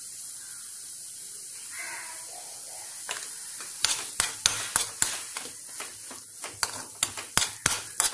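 Tomato sauce sizzling steadily in a steel kadai. From about four seconds in, a steel spoon stirs it, clinking and scraping against the pan in quick, irregular strokes.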